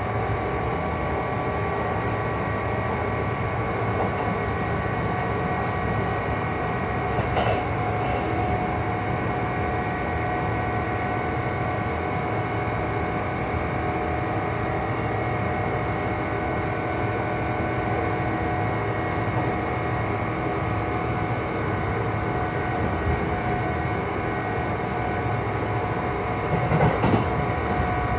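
Running sound inside a Kintetsu 2800 series motor car: the Mitsubishi MB-3110A traction motors and gearing give a steady whine of several fixed tones over a rumble, at constant speed. The uploader notes an unusual noise from the drive couplings on this car. Two short knocks are heard, one about seven seconds in and one near the end.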